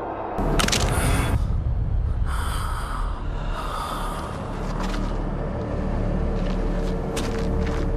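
A man's harsh, gasping breaths and strained grunts in a struggle as he is pinned down with a hand crushing his chest, over a low rumble. A steady low tone comes in about six seconds in.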